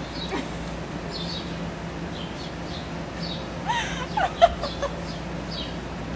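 A woman laughs in a short burst about four seconds in, over small high bird chirps that repeat every half second or so and a steady low hum.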